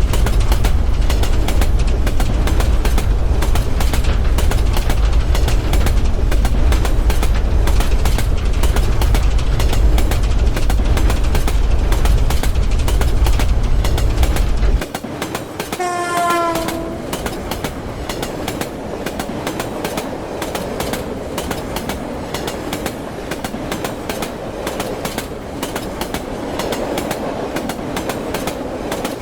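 Indian train running, with a heavy rumble and rapid clatter of wheels on rail joints. About halfway the deep rumble drops off suddenly. A second later the train horn sounds one blast of about a second, and the lighter wheel clatter runs on.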